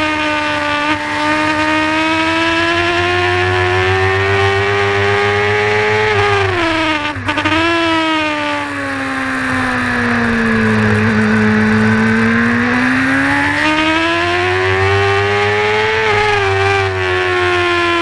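Honda supersport race motorcycle's engine heard from onboard at high revs, with wind rush. The revs drop sharply about seven seconds in and sink to their lowest around eleven seconds through a long corner. They then climb steadily, with a quick dip shortly before the end.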